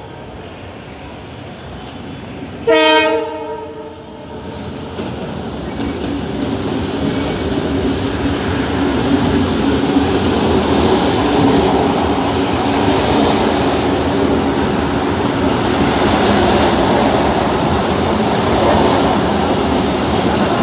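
An Abu Qir line train sounds its horn once, briefly, about three seconds in, then approaches and passes close by: the rumble and clatter of its wheels on the rails builds from about four seconds in and stays loud.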